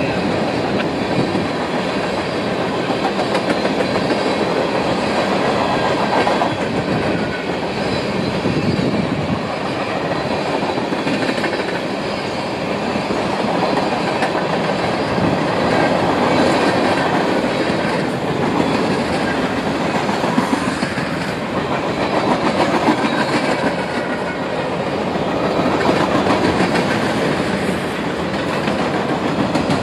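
CSX manifest freight train's tank cars and covered hoppers rolling past close by: a steady rumble and clatter of steel wheels on the rails, rising and falling slightly as the cars go by.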